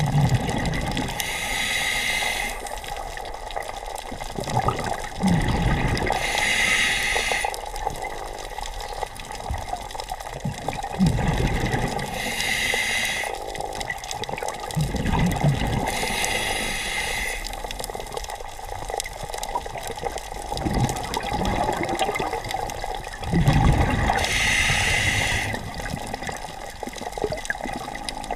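Scuba diver breathing through a regulator underwater: five hissing inhales about five seconds apart, alternating with low rumbling bursts of exhaled bubbles.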